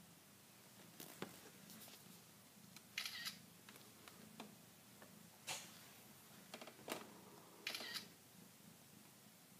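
Smartphone camera shutter sound, clicking several times a second or two apart as photos are taken, over faint room tone.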